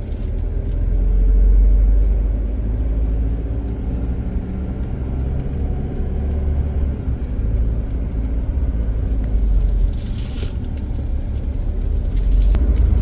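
Car engine and road rumble while climbing a steep, narrow mountain road at low speed, with a brief hiss about ten seconds in.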